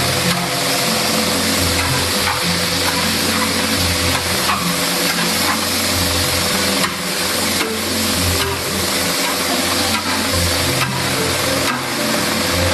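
Food sizzling in a large wok as it is stir-fried, with occasional sharp clanks of a metal spatula against the wok. A steady low hum runs underneath.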